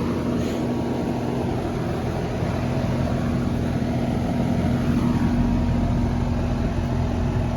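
Residential AC condensing unit running steadily: the compressor's hum under the rush of the condenser fan. The compressor, which had failed to start, is now running on a hard-start kit with its amp draw within rated load.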